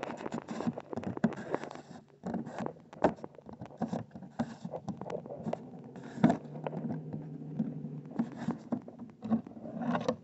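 Irregular knocks, clicks and scrapes of a plastic kayak being handled as its hatch is opened and the inside checked for water.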